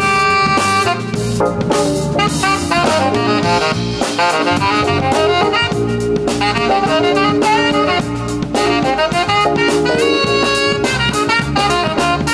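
Small jazz band playing live: saxophone lead over drum kit and electronic keyboard, with steady drum and cymbal strikes throughout.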